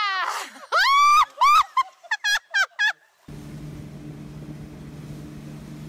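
A voice gives loud high-pitched shrieks, two long ones and then several short quick yelps. From about three seconds in comes the steady low drone of a tow boat's engine, under a hiss of wind and water.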